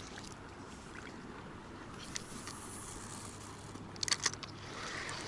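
Quiet riverbank ambience with a faint low steady hum, broken by a quick cluster of sharp clicks about four seconds in.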